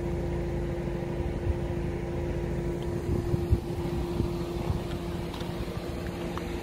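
Wind buffeting the microphone outdoors: a low rumbling haze with a steady hum beneath it and a few faint knocks.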